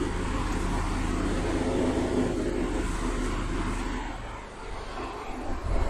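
Felt duster rubbing across a whiteboard over a steady low mechanical hum; the rubbing dies away a little past four seconds in.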